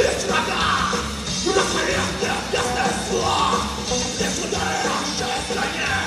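Live heavy metal band playing loudly, with bass guitar and drums under the singer's shouted vocals.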